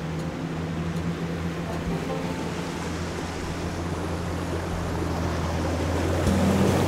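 Mercedes-Benz G-Class wading through water: its engine runs with a low steady hum under the wash and splash of water pushed along its body, growing louder as it comes closer.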